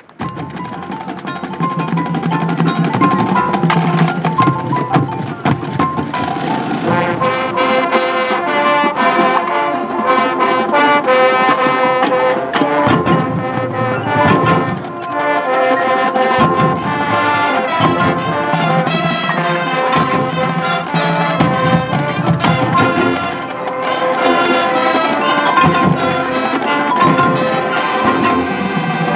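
High school marching band playing: brass section with trumpets and trombones over drumline percussion. The music starts just after the opening and swells over the first few seconds.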